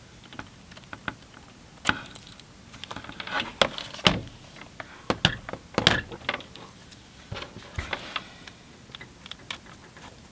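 Irregular clicks and knocks of a metal laptop cable lock being handled and pushed into the laptop's lock slot, a few of them louder.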